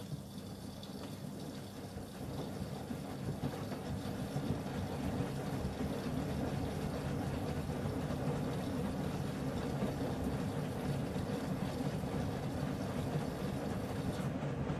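Miele W1 front-loading washing machine running with a steady rumble that grows louder over the first few seconds, then holds.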